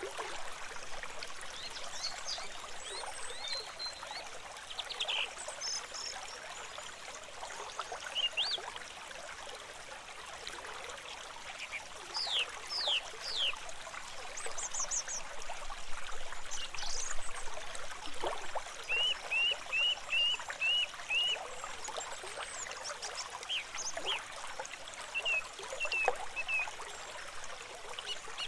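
Stream water trickling and running steadily over rocks, with scattered high chirping calls over it, including a quick run of about six short repeated notes past the middle.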